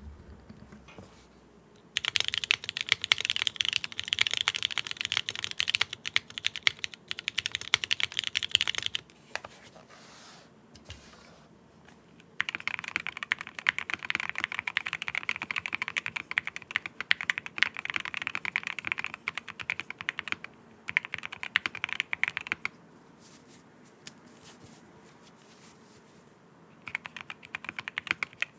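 Fast typing on a mechanical keyboard built with Cherry MX Black linear switches on a carbon fiber plate, a clacky sound. It comes in three long runs with short pauses between.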